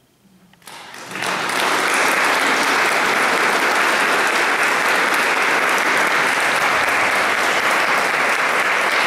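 Audience applause: after a brief hush, clapping breaks out a little under a second in and quickly builds to full, steady applause.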